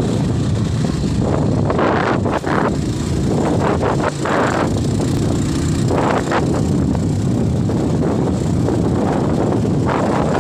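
Motorcycle running during a ride, with wind noise on the microphone rising and falling irregularly over the steady low rumble.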